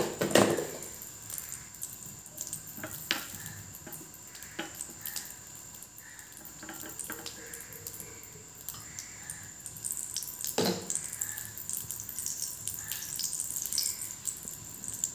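Butter melting in a hot pan on a gas stove, crackling and popping faintly with scattered small ticks. A sharp knock sounds just after the start and another about ten and a half seconds in.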